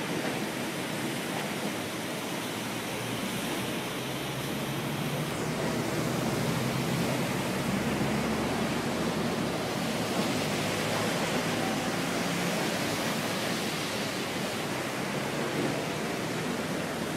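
Steady rushing noise with no distinct events, growing slightly louder a few seconds in.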